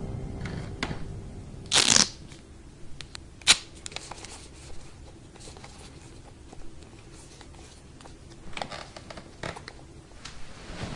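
Wall rocker light switch flicked off and on several times: sharp single clicks, the loudest about three and a half seconds in, and clusters of smaller clicks near the end. A short, louder noise lasting under half a second comes about two seconds in.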